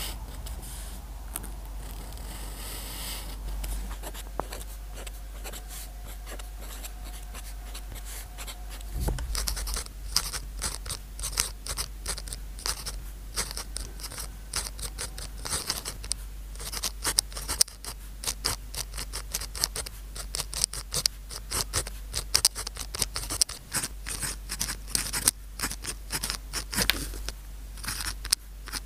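Pen nib scratching across paper in quick, uneven strokes while writing out words by hand. The strokes become louder and denser about a third of the way in, over a steady low hum.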